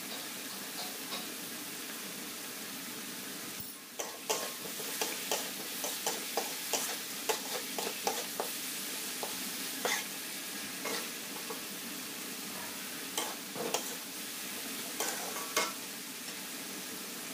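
Sliced green chillies sizzling in a wok while a metal spatula scrapes and clacks against the pan in stir-frying. The scraping starts about four seconds in and comes thick and fast for several seconds, then in scattered strokes; a steady frying hiss runs underneath.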